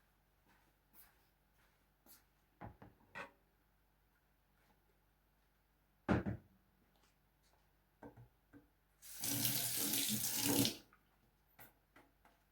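Kitchen tap running briefly into a sink for under two seconds, about nine seconds in, amid a few light clicks and knocks.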